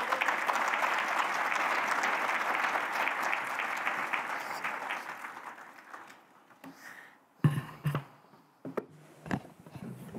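Audience applause in a large conference hall, dying away after about six seconds. Then a few sharp thumps and knocks, as the speaker handles the podium microphone.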